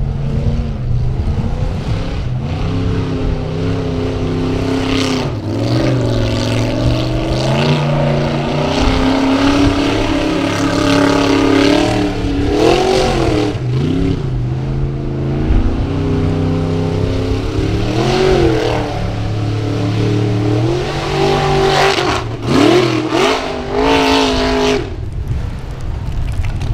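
Formula Offroad unlimited-class buggy's engine revving hard, its pitch sweeping up and down again and again as the wheels spin on a steep, loose hillside. A few sharp cracks come near the end.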